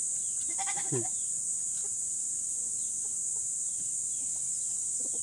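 A goat bleats once, briefly, about a second in, over a steady high-pitched drone.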